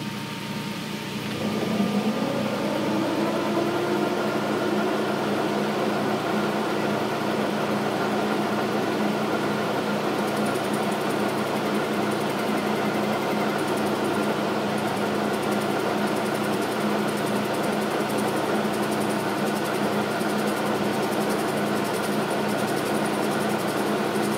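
Logan metal lathe starting up and running steadily: its motor and headstock spin up over the first couple of seconds, rising in pitch, then hold an even hum. A cutting tool takes a cut on the outer diameter of an off-true part, cutting only on one side.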